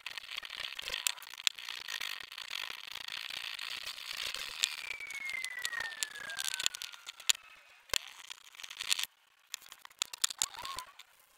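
Small flat blade scraping thick paint off a metal bicycle wheel hub: a steady rasping scrape with small clicks, and a squeal that falls in pitch about five seconds in. The scraping stops about nine seconds in, leaving only quiet handling.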